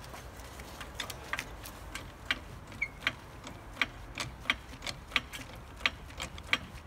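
Hydraulic trolley jack being pumped with its long handle to lift the car: a series of short, sharp clicks, about one every half to three-quarters of a second, starting about a second in.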